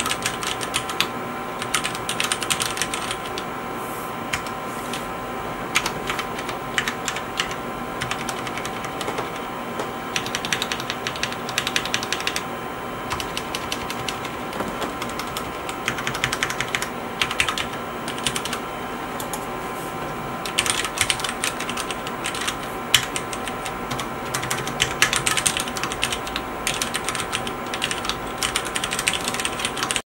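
Typing on a Cherry MX Board 3.0S RGB mechanical keyboard with Cherry MX Brown switches: bursts of rapid key clacks with lighter pauses between them.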